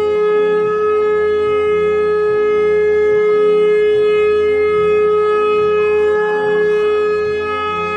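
A single steady, held drone tone like a wind instrument, with a softer pulsing layer beneath it.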